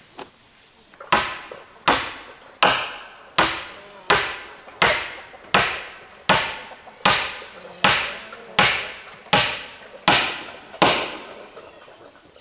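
Steady blows of a hand tool striking wood: about fourteen strikes at an even pace, roughly one every three-quarters of a second, each with a short ringing decay.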